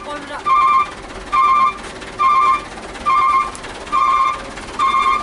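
Truck's reverse-warning beeper sounding about once a second, each beep a short steady electronic tone, as the truck is manoeuvred in the queue.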